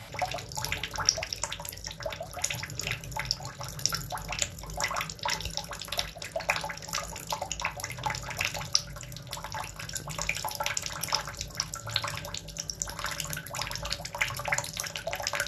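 Water splashing and bubbling in a tub, a steady dense patter of small splashes that cuts off suddenly at the end.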